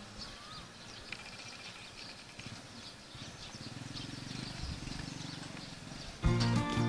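Small birds chirping over quiet outdoor ambience, with a low pulsing sound in the middle. Background music comes back in loudly near the end.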